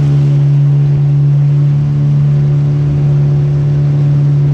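A motorboat engine running steadily at constant speed, its pitch holding even.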